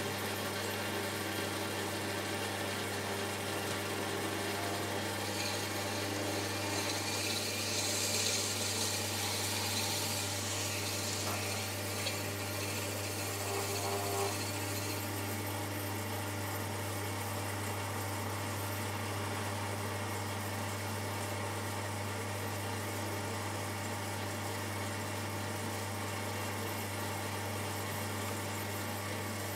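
Shimpo RK10 potter's wheel running at a steady speed with a constant low hum. Wet hands rub on the spinning stoneware clay, with a stretch of hissing rubbing about a quarter of the way in.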